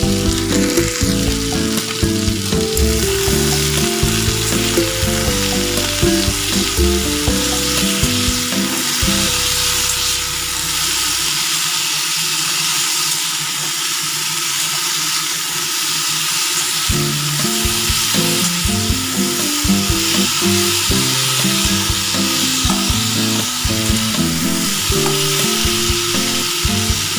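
Cut potatoes frying in hot oil in a kadai with black cumin, turmeric and a green chili, sizzling steadily while being stirred.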